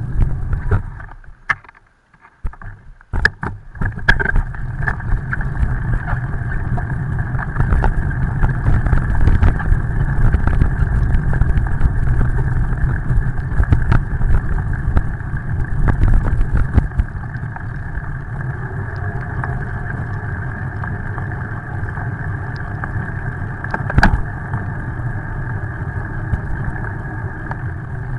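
Steady rush of wind and tyre noise on the microphone of a camera mounted on a moving bicycle riding on wet pavement. It nearly drops out for a second or two near the start, gets somewhat quieter after about 17 seconds, and has a single sharp knock about 24 seconds in.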